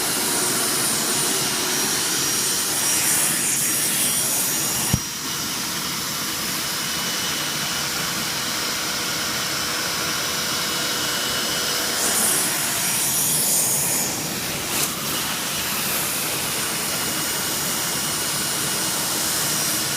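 Hoover SteamVac SpinScrub 50 carpet cleaner running, its suction motor giving a steady whining hiss as the upholstery tool sprays and vacuums cloth. A sharp click comes about five seconds in, after which the high hiss thins, returning about twelve seconds in.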